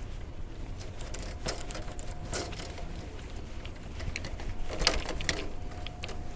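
Electric drain-cleaning machine running with a steady low hum and a faint whine, its cable knocking and clanking several times, loudest about five seconds in.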